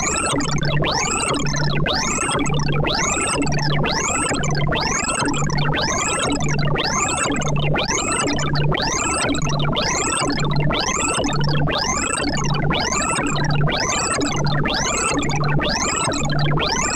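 ArrayV sorting-visualizer audio for a cocktail shaker sort: a dense stream of rapid synthesized beeps, one pitch per array access. The tones pile up into rising-and-falling sweeps that repeat about once a second, over a low pulse at about the same rate.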